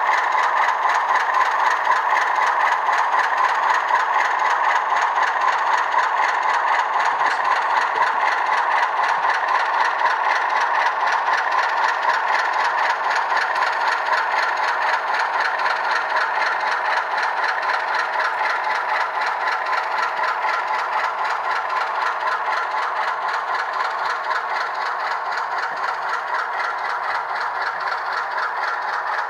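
ESU LokSound V4 sound decoder in a model Alco RS-2 locomotive playing its diesel engine sound through a small speaker: tinny with no deep bass, running steadily with a fast rattling beat and easing a little quieter toward the end.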